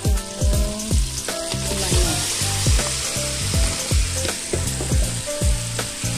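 Raw chicken thigh and wing pieces frying in hot oil in a stainless steel pot, a steady sizzle that grows louder about two seconds in. A thudding beat of background music, about two thumps a second, runs underneath.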